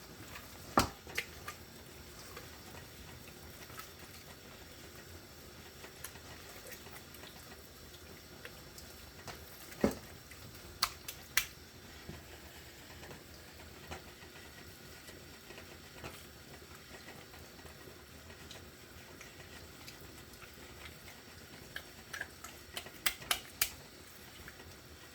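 Quiet kitchen handling sounds from seasoning a whole raw chicken by hand: scattered soft clicks and taps, a few sharper ones about ten seconds in and a quick cluster near the end, over a steady faint hiss.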